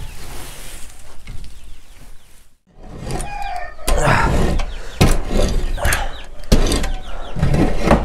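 Rustling and scraping of soiled bedding and droppings being cleared out by hand, with chickens clucking and a few knocks. There is a short break about two and a half seconds in.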